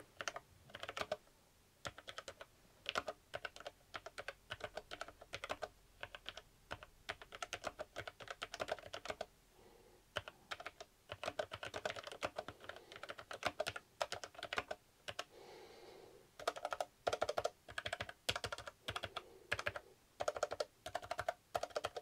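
Typing on a Logitech MX Mechanical Mini for Mac with low-profile Tactile Quiet mechanical switches, keys pressed quite hard: quick runs of dampened key clicks broken by short pauses.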